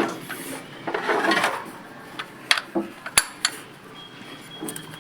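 Metal hand tools clinking and knocking on metal in sharp, separate clicks, with some rough handling noise in between.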